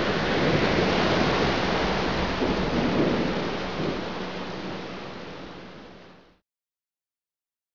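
Steady rain-like noise with thunder-like rumble, fading out over a couple of seconds to dead silence about six seconds in.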